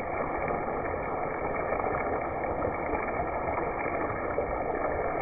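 Battered pieces of thresher shark deep-frying in hot oil in a pan, the oil sizzling with a steady, dense crackle.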